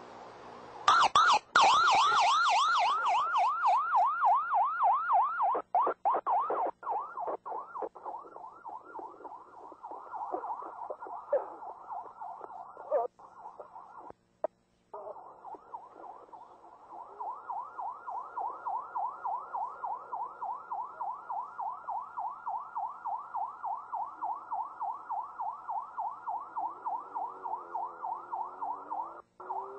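Police siren in yelp mode, rising and falling fast at about four cycles a second, starting about a second in. It cuts out briefly midway, and a second, slower siren joins near the end.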